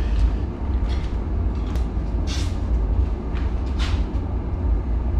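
Steady low rumble with scattered sharp knocks and taps, about half a dozen, as foam board insulation panels are handled and set against a concrete basement wall.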